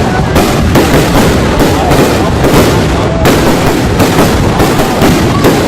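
Fireworks display: a dense, continuous barrage of rapid bursts and crackles with no pause.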